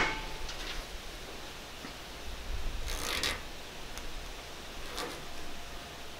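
Blade scraping and cutting window-screen mesh at the edge of the screen frame: faint rustling and small ticks, with one louder rasp about three seconds in.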